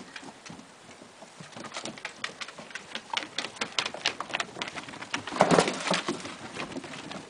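Airedale terrier and puppies' claws clicking and pattering on wooden deck boards, a quick, irregular run of light taps, with a louder scuffle about five and a half seconds in.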